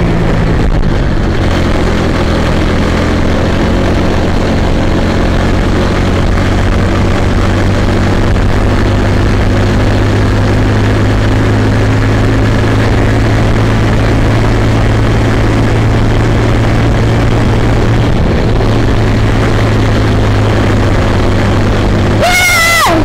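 A Kid Kart's small engine runs steadily at speed, heard onboard from the steering wheel. Near the end a brief high-pitched squeal sweeps sharply down in pitch.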